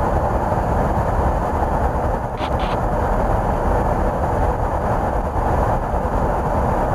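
Steady rushing in-flight noise of a KC-135 tanker heard from inside the aircraft, with a couple of brief clicks about two and a half seconds in.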